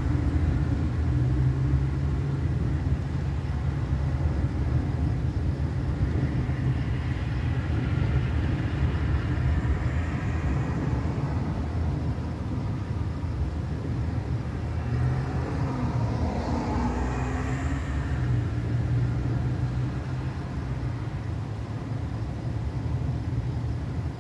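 Road vehicles passing over a steady low rumble: one swells and fades about eight to ten seconds in, another around sixteen to eighteen seconds, its pitch bending as it goes by.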